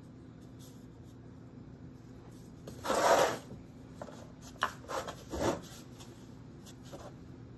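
Scraping and rubbing of a clay-modelling tool and hands on a clay coil pot and its board: one loud scrape about three seconds in, then a few short scrapes and a low knock.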